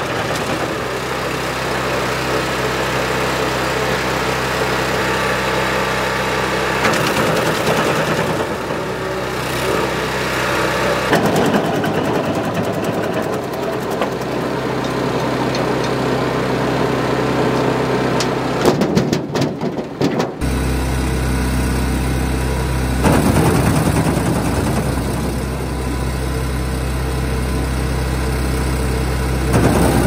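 Large gasoline-engined trailer-mounted wood chipper running steadily while branches are fed in and shredded, with noisier stretches of chipping over the engine's steady hum. The engine sound changes abruptly about two-thirds of the way through, to a deeper, stronger hum.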